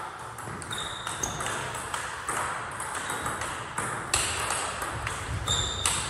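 Table tennis rally: the celluloid ball clicks sharply off the rubber-faced paddles and the table at irregular intervals, with a few brief high squeaks.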